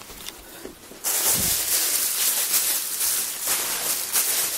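Plastic bag rustling and crinkling as it is handled, starting suddenly about a second in with a dull thump just after, then a busy run of crisp crackles.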